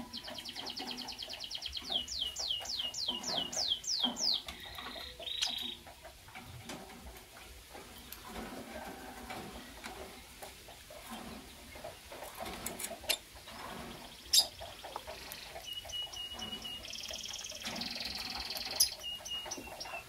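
Blue lovebirds calling: a fast run of shrill, high chirps over the first four seconds, then a quieter stretch with a few sharp clicks, and more shrill chirps with a harsh, buzzy call near the end.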